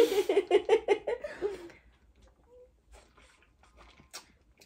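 Laughter: quick, rhythmic giggling for about the first two seconds, then it dies away to quiet broken by a few faint small clicks.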